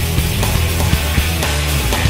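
Loud rock background music with a heavy, held bass line and a steady, driving drum beat.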